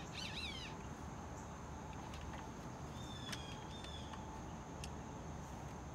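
A small bird chirps a quick run of notes near the start and gives a short whistled call about three seconds in, over steady outdoor background noise, with a few light clicks of plastic parts being handled.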